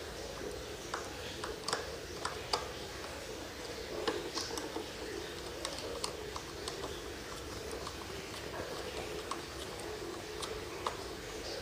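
Faint, scattered clicks and light taps of a screwdriver working the bolts of an RC plane's brushless motor mount, with the motor and propeller being handled, over steady room noise.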